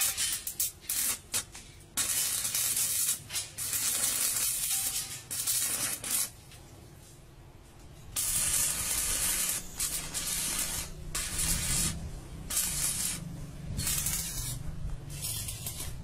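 Electric arc welding on steel rebar: the arc crackles and hisses in short bursts as it is struck, then burns steadily for several seconds at a time, with a pause between welds.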